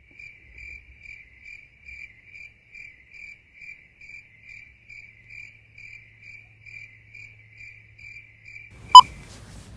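Steady rhythmic high chirping, a little over two chirps a second, typical of a cricket. Near the end, one loud, short electronic beep.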